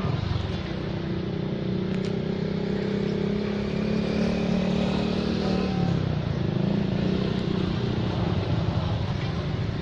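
A motor vehicle's engine running with a steady hum that drops to a lower pitch about six seconds in.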